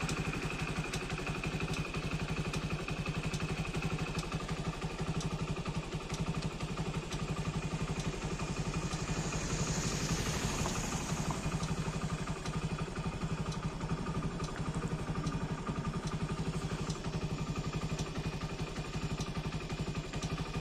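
A vehicle engine running steadily with an even, rapid beat. A brief hiss swells and fades about ten seconds in.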